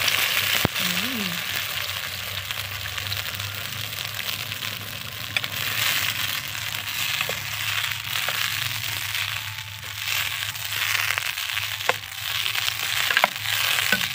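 Blended pasilla chile sauce sizzling as it is poured onto frying beef steak in a hot clay cazuela, then sizzling on as a spatula stirs it. A few sharp clicks in the second half, as the spatula knocks against the pot.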